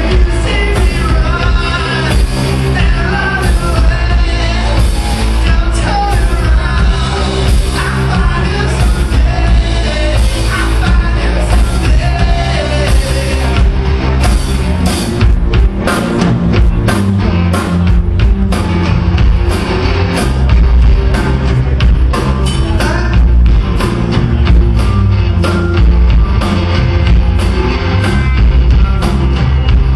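Live indie rock band playing loud: electric guitars over bass and a drum kit, with a voice singing. The drum hits come through sharper and more regular in the second half.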